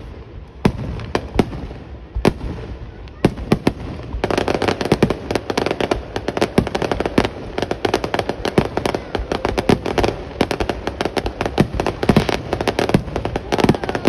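Aerial fireworks shells bursting: separate sharp bangs for the first few seconds, then from about four seconds in a dense, continuous barrage of rapid bangs and crackling.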